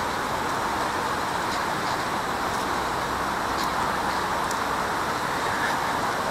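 Steady road traffic noise: an even, continuous rush with no single vehicle standing out.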